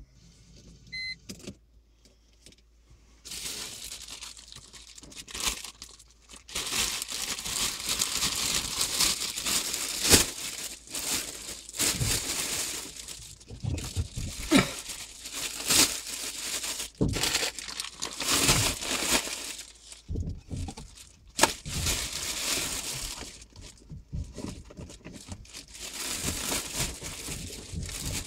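Irregular rustling and crinkling close to the microphone, with scattered sharp clicks, starting about three seconds in after a quiet opening.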